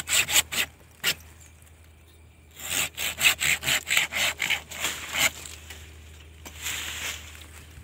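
Hand pruning saw cutting through a fig tree branch: a few strokes at the start, a pause, then a quick run of about four strokes a second for nearly three seconds until the cut is through. A brief rustle follows near the end.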